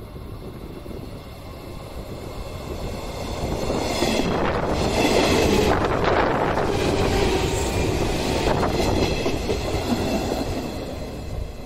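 Yellow JR West 115-series electric train passing close by, its wheels clattering over the rail joints. It builds as it nears, is loudest for a few seconds in the middle, and fades as it moves off.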